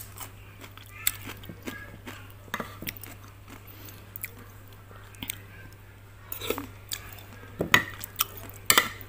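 A metal spoon clinks and scrapes against a bowl of chicken stew, with chewing between the spoonfuls. The sharpest clinks come near the end, over a faint steady low hum.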